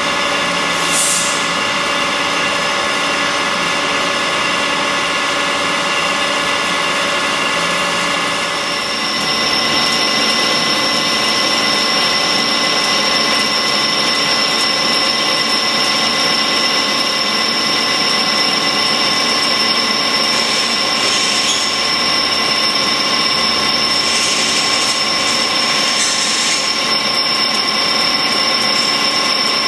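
A CNC machine tool running steadily with a mechanical whine of several steady tones over a noisy hiss; about nine seconds in, the tones change and a higher whine sets in and holds.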